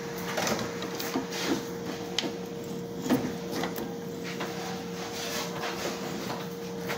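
Scattered clicks, knocks and light metallic rattles of a drill press's quill, spindle and feed-handle hub being worked by hand, over a steady hum.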